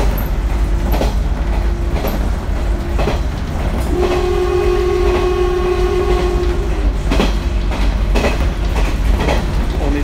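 JR Kyushu Seaside Liner diesel railcar running, heard from inside the cabin: a steady low rumble with wheel clacks over the rail joints about once a second. From about four seconds in, a horn blows one long steady note for nearly three seconds.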